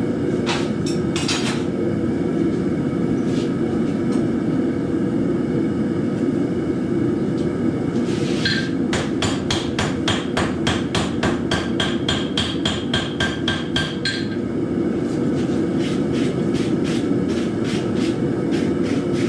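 Hand hammer striking hot steel on an anvil: a few scattered blows, then from about eight seconds in a fast, even run of ringing blows, about four or five a second, and another run near the end. The propane forge's burner hisses steadily underneath.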